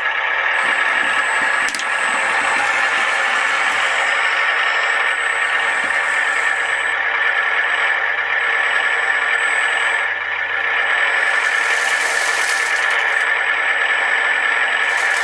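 Radio-controlled scale model machine running: a steady electric motor and gear whine, with a thin high whine that cuts in and out several times.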